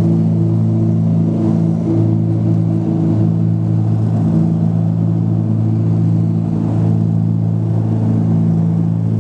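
A small airplane's engines at takeoff power, heard from inside the cabin as a loud, steady drone with a strong low hum, while the plane rolls, lifts off and climbs.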